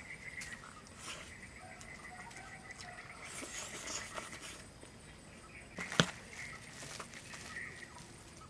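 Close-up eating sounds: chewing a crispy fried vegetable fritter and rice, with small clicks of chopsticks against the bowl, and one sharper click about six seconds in.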